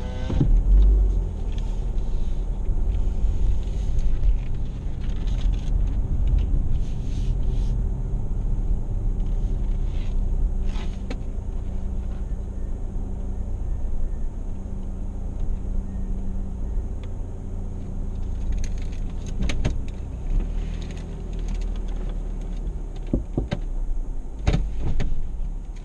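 Car cabin sound as the car rolls slowly: a steady low rumble of engine and tyres, with a few short clicks and knocks scattered through.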